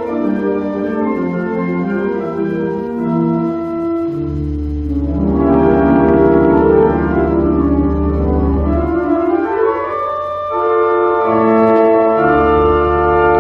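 Background organ music: sustained chords, with deep bass notes coming in about four seconds in, dropping out, and returning near the end.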